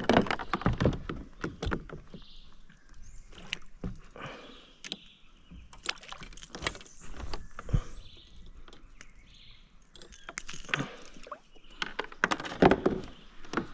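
Water splashing and sloshing at the side of a plastic kayak while a peacock bass is gripped and unhooked in the water, with scattered sharp knocks and clicks of tackle and hands against the hull. The splashing is busiest at the start and again about ten seconds in, as the fish is lifted out.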